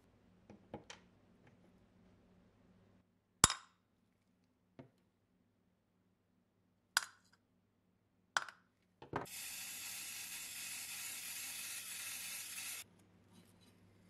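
Small metal lighter parts clinking against a workbench and a glass cup, with a few sharp clinks spread out. After about nine seconds a steady hiss runs for about three and a half seconds and cuts off suddenly.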